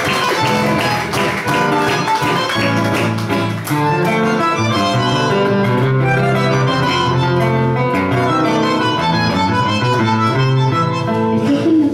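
Instrumental break of a Latin American folk song with no singing: guitar strumming under a melody of held notes.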